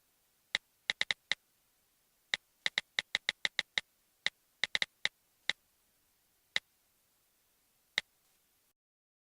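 iPad button clicks: sharp, bright ticks pressed in quick irregular runs of several a second, then thinning out to single clicks a second or more apart.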